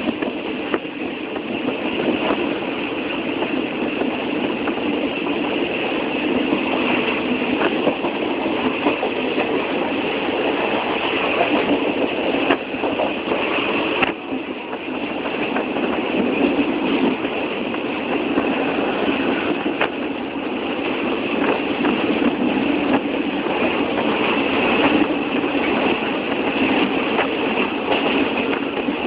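Train in motion on the rails: a steady running noise with scattered sharp clicks.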